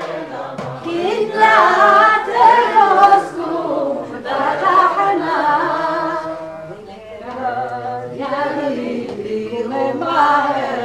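A group of people singing a Hebrew piyyut (Jewish liturgical poem) together in phrases, with a pause between phrases about four seconds in and another around seven seconds.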